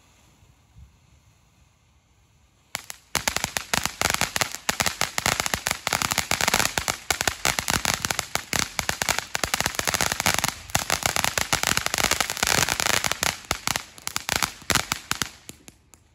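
Ground fountain firework with a crackling effect: quiet at first, then from about three seconds in a dense, rapid crackle of many small pops that keeps on, easing briefly about ten seconds in.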